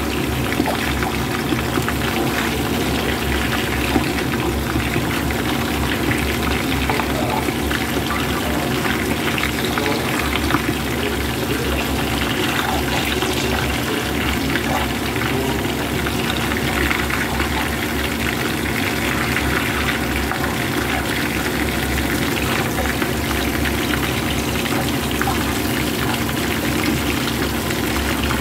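Oil sizzling steadily around several small whole fish frying in a nonstick pan, with a dense scatter of small crackles and pops.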